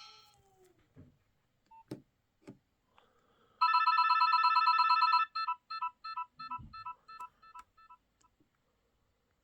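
Nokia 6030 mobile phone's speaker playing a short electronic ringtone: a steady beep about a second and a half long, then a quick string of short beeps that fade away. A few faint clicks come before it.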